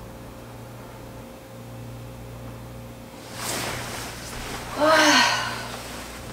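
Bedding rustling as a woman sits up in bed, followed about five seconds in by her short wordless vocal sound of effort, its pitch rising and falling; this is the loudest part. Before that, only a steady low hum of room tone.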